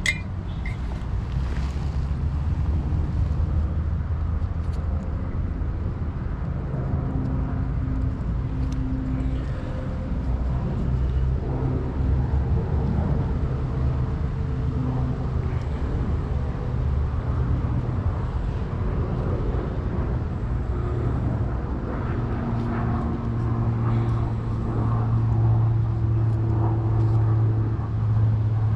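A steady, low engine drone that shifts a little in pitch now and then and grows somewhat louder near the end.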